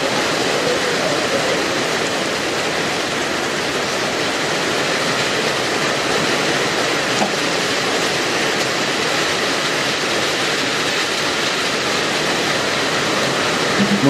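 Very heavy rain pouring down in a steady, even hiss.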